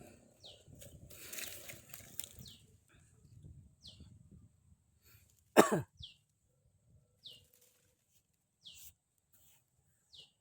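A bird repeating a short falling whistle every second or two over a faint steady high insect drone. Rustling and scraping sounds about one to two and a half seconds in, and a single loud short sound about five and a half seconds in.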